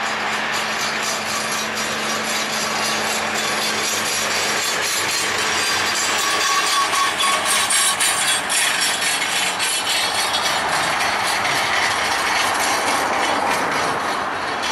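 Boeing 737-800's CFM56-7B jet engines as the airliner touches down and rolls out along the runway: a steady rushing roar that swells and crackles about six to nine seconds in.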